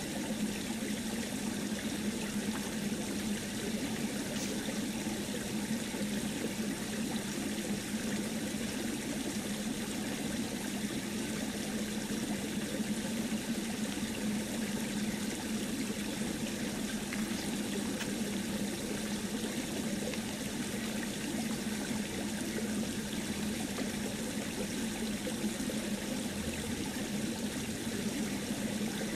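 Steady, even rushing noise like running water, with a low hum underneath that holds one pitch throughout.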